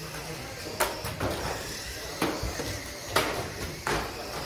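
Small model hot-rod race cars running on a carpeted track, with about half a dozen sharp knocks and clacks as cars hit the track's barriers, blocks and each other, over a steady hiss.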